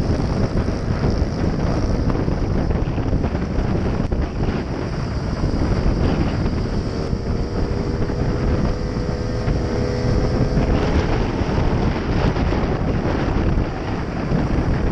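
Heavy wind noise on the microphone of a Gilera scooter riding at road speed, with the scooter's engine and tyre noise running steadily underneath. A faint humming tone comes through for a few seconds in the middle.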